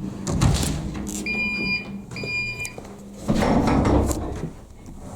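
Two electronic beeps, each about half a second long, over a steady low hum. A short clatter comes near the start, and a louder rustling clatter follows about three seconds in.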